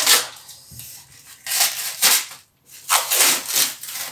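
Food packaging rustling and crinkling in three bursts as sausages are handled.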